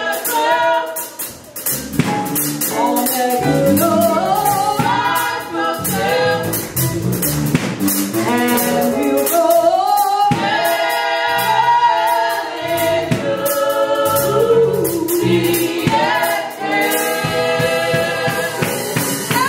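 A gospel vocal quartet, three women and a man, singing together into microphones, their voices blending in harmony.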